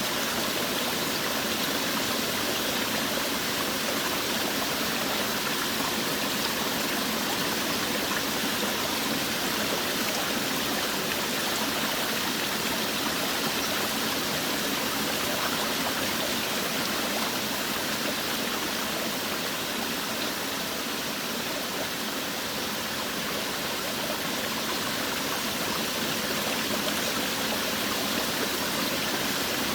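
Forest waterfall: water falling and rushing in a steady, even hiss with no breaks.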